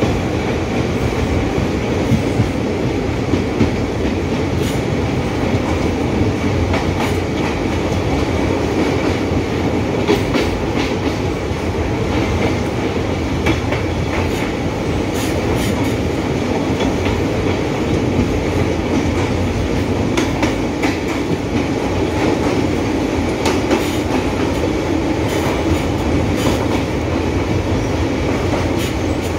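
Broad-gauge passenger train running through a rail tunnel, heard from an open coach doorway: a loud, steady rumble of wheels on rails with scattered sharp clicks.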